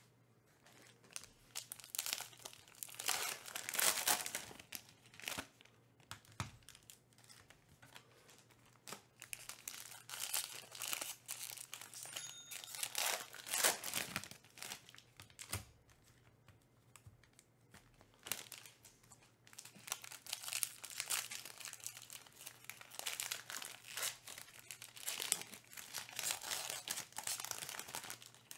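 Foil trading-card pack wrappers crinkling and tearing as packs are ripped open and handled, in spells of crackling with short quieter gaps.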